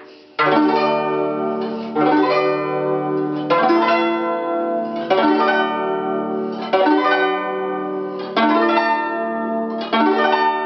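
Guzheng playing a run of fast rolled arpeggios, each group swept in one quick stroke about every one and a half seconds with the strings left ringing between. This is the arpeggio exercise played straight through.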